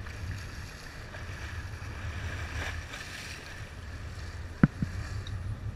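Sportfishing boat's engine running with a steady low rumble, water washing along the hull and wind on the microphone; two sharp knocks about four and a half seconds in.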